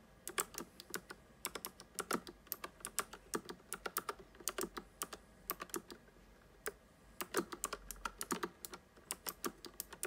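Typing on a Nuphy Air 75 low-profile mechanical keyboard with clicky Gateron Blue switches: quick runs of sharp key clicks, with a short pause a little past the middle.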